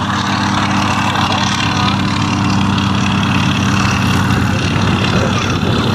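Light aircraft's piston engine running steadily at idle, a constant droning hum.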